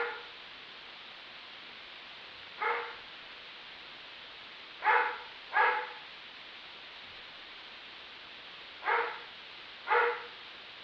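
A dog barking: six short barks, some single and some in quick pairs, a second or more apart, over a steady hiss.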